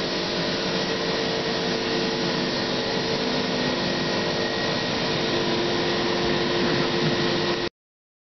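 Victor V-Center 70 CNC vertical machining center running: a steady mechanical whir with a few fixed humming tones, cut off suddenly near the end.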